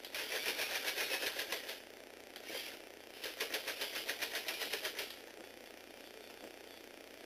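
Plastic Lego Technic gears in a motorised mechanism clicking rapidly, about ten clicks a second. The clicking comes in two runs of about two seconds each, with a short burst between them.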